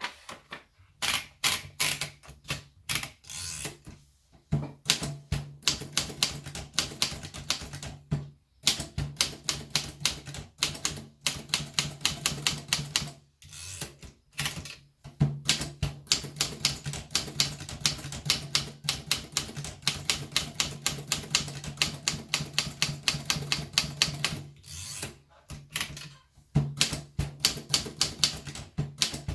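Royal typewriter being typed on: runs of rapid keystrokes with a low steady hum underneath, broken by a few short pauses.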